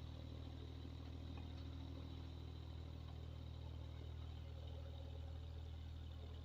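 Blower motor running with a steady low hum.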